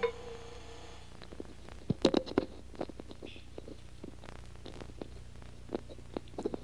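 The last held note of background music fades out within the first second, leaving a steady low electrical hum with scattered short clicks and knocks, a cluster of louder ones about two seconds in.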